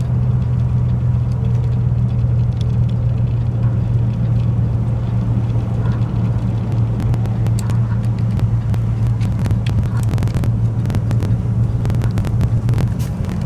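Truck engine running with a steady low drone, heard from inside the cab, with scattered sharp ticks becoming more frequent from about halfway through.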